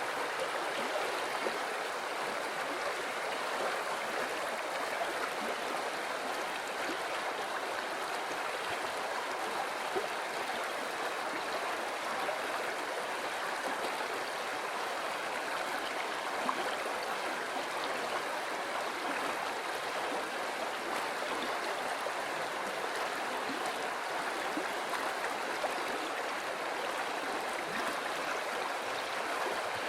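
River water flowing steadily over rocks, an even rushing with small gurgles and splashes.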